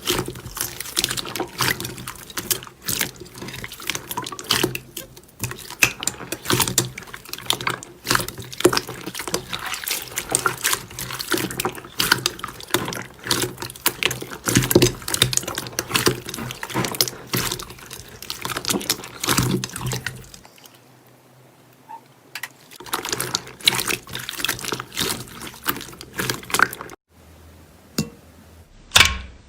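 Slime being squeezed and worked by hand: a dense run of wet, sticky clicks and pops, which thins out for a couple of seconds and then returns as a few scattered pops after a sudden cut near the end.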